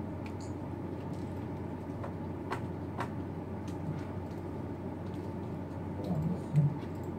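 Steady room hum with no speech, broken by two sharp clicks about half a second apart, roughly two and a half seconds in. A short low sound near the end is the loudest moment.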